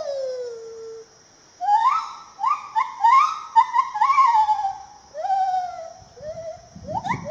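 Lar gibbon (white-handed gibbon) calling: a series of rising whooping notes that follow each other quickly after a short pause about a second in. Low background noise comes in near the end.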